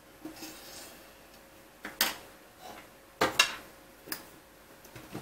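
Small metal screws and a screwdriver being handled while fastening a corner bracket to an aluminium extrusion frame: a few sharp, separate metal clicks and knocks, the loudest a little past the middle, with light rustling near the start.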